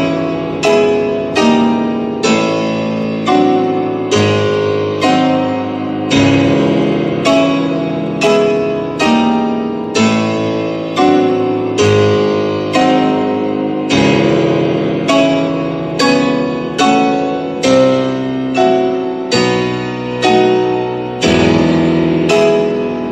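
Piano playing a passage of full struck chords, a new chord roughly every three-quarters of a second, each ringing and fading before the next, with a few held longer.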